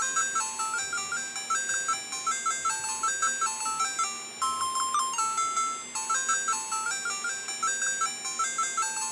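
Background music: a bouncy melody of quick, short bell-like notes repeating a simple phrase.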